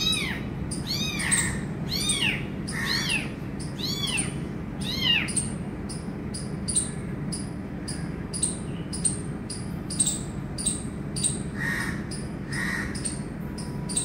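A kitten mewing repeatedly in high, rising-and-falling cries, about one every 0.7 s, the distress calls of a kitten seeking its mother; the cries stop about five seconds in, with two softer calls near the end. From midway, a string of sharp clicks comes about three a second.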